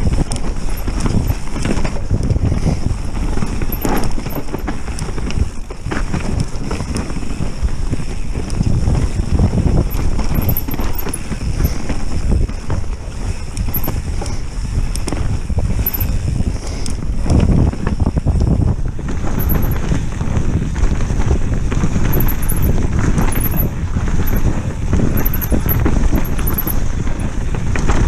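Mountain bike ridden fast down a rough trail, heard through a rattling GoPro mount: a constant clatter of knocks and rattles over the bumps, with tyre and wind noise underneath.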